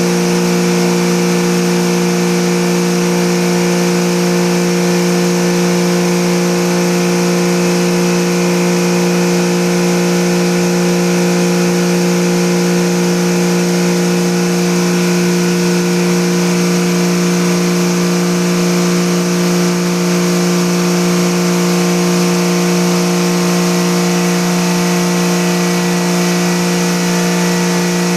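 Automatic air-conditioner cleaning machine running steadily: a constant motor hum with a high hiss over it, unchanging throughout.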